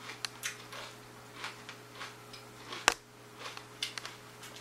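Scattered small clicks and ticks, with one sharp, louder click about three seconds in, over a faint steady low hum.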